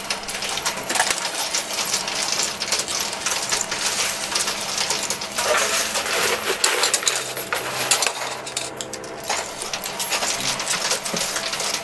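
Quarters clinking and jangling in a coin pusher machine, a dense, steady run of many small metal clicks as coins drop onto the playfield and are pushed along.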